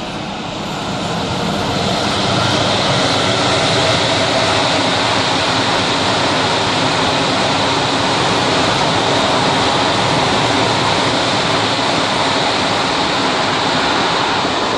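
Freight train rolling past: a steady roar of wagon wheels on the rails, with a high ringing hiss above it. It swells over the first two seconds, then holds.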